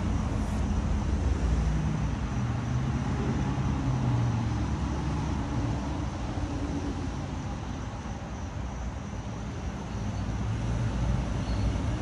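Vehicle engine running steadily at low speed under load, its low drone wavering a little in pitch, while it draws the cable that pulls the new water line through the ground.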